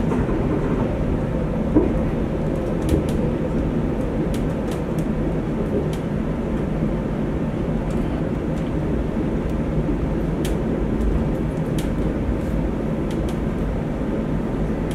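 Chiba Monorail suspended train running along its overhead track, heard from inside the driver's cab: a steady low rumble with a few faint clicks.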